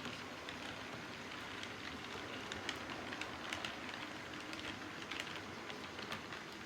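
Model train running on its layout track: a steady rolling rush from wheels and motor with irregular small clicks from the wheels over rail joints.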